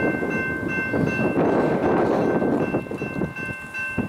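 Railroad grade-crossing bell ringing in a steady repeated stroke, about two to three a second, over gusty wind rumbling on the microphone.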